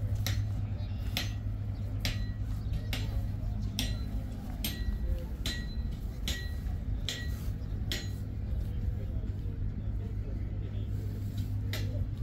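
Metal struck at an even pace, a little under once a second, each clink leaving a short high ring, over the steady low hum of running machinery.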